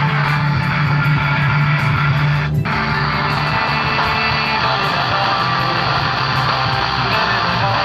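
Guitar music played through a home-theatre multimedia speaker unit under test, over a steady low hum; the sound drops out for a moment about two and a half seconds in, as if from a loose connection.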